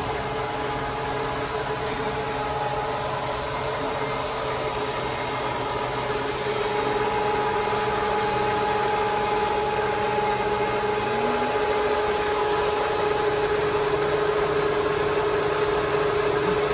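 Willis 500VS vertical milling machine running under power: a steady electric-motor hum with a high whine, getting a little louder about six seconds in.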